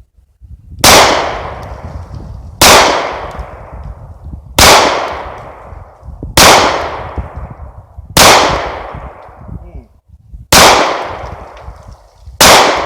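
Taurus PT-111 G2 9mm pistol fired seven times at a slow, steady pace, about one shot every two seconds, each loud shot trailing off in a long echo.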